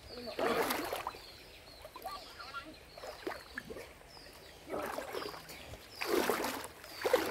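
Shallow river water sloshing and splashing as a person shifts his body through it, in three separate bursts.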